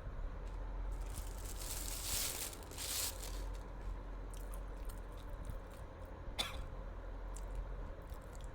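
A young woman's single sharp hiccup about six and a half seconds in, after a few seconds of soft airy noise, over a low steady hum.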